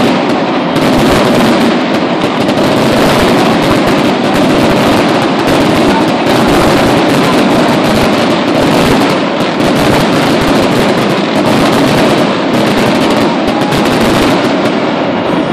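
Stadium fireworks and pyrotechnic fountains going off in a continuous, loud barrage of crackling bangs.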